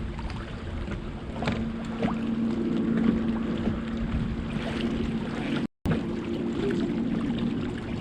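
Wind buffeting the microphone over a steady low hum, with a few small knocks. The sound drops out completely for a moment about six seconds in.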